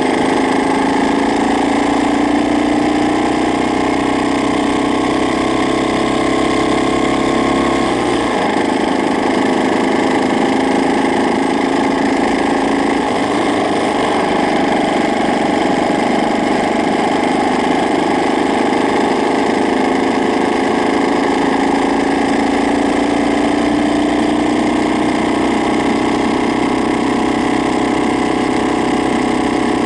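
Honda Ape's single-cylinder four-stroke engine idling with a loud abnormal noise. The engine speed wavers slowly up and down, with a change in the note about eight seconds in.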